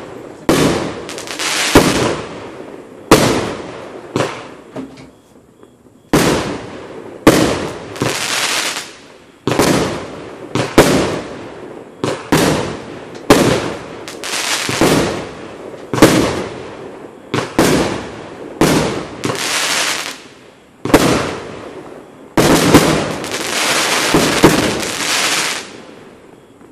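37-shot firework barrage cake firing shot after shot, about twenty in all, roughly one every second or so. Each is a sharp bang trailed by a second or so of crackle from the bursting stars. There is a short pause about five seconds in, and the last burst fades out near the end.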